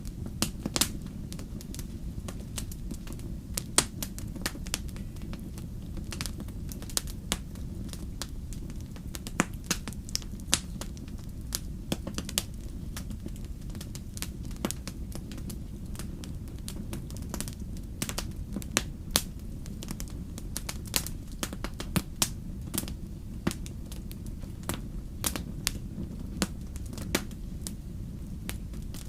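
Wood fire burning with a steady low rumble and frequent sharp, irregular crackles and pops of burning logs.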